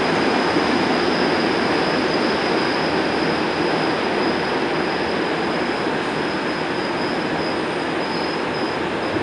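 Interior noise of a Montreal MR-73 rubber-tyred metro car in motion: a steady rumble with a thin high whine held throughout, easing slightly as the train slows into a station.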